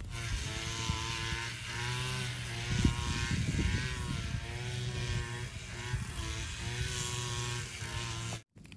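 A small engine droning steadily with a low hum, its pitch wavering up and down about once a second, then cutting off abruptly near the end.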